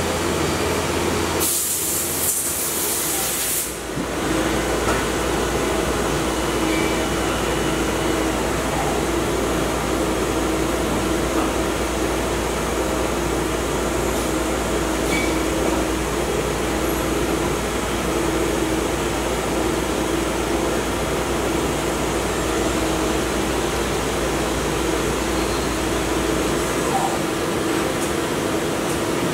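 Laser engraving station running, a steady whirring drone with a constant hum. A loud hiss lasts about two seconds, starting a second and a half in. The deep rumble underneath drops away near the end.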